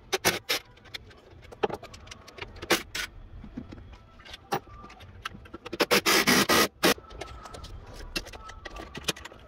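Clicks and metallic clatter of hand tools and bolts being handled under the hood, with a burst of about a second from a cordless impact wrench a little after halfway, loosening a throttle-body bolt.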